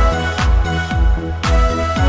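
Background music: an upbeat electronic track with a steady kick-drum beat about twice a second under sustained synth chords.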